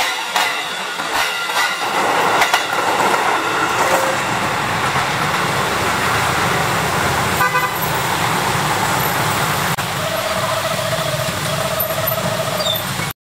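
An electric commuter train rolls past close by, then road traffic of motorcycles and cars crosses the tracks with engines running. A vehicle horn honks twice near the end, each honk about a second long.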